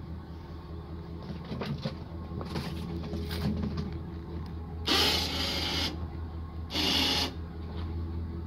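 Electric hoist motor run from a handheld remote in two short bursts, about a second and then about half a second, taking up the lifting chain on a diesel cylinder head. A few clanks and rattles come before, over a steady low hum.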